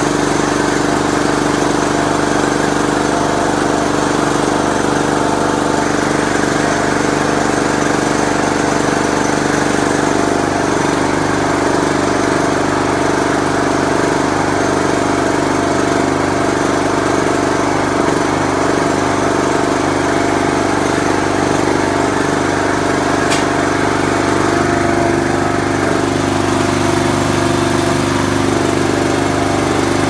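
Cub Cadet riding mower's engine running at a steady speed.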